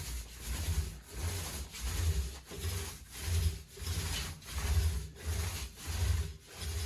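Paint roller being worked back and forth over a wall, an even rubbing stroke about three times every two seconds.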